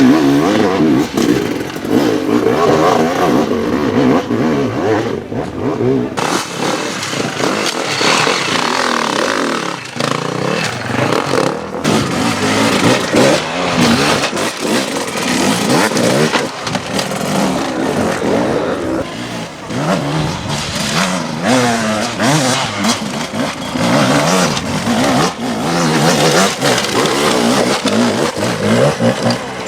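Enduro motorcycle engines revving hard and dropping back over and over as the throttle is worked in short bursts, with some clattering.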